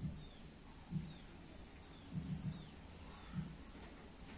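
Faint, repeated short high chirps, each falling in pitch, about one every two-thirds of a second, typical of a small bird calling, with soft low thumps between them.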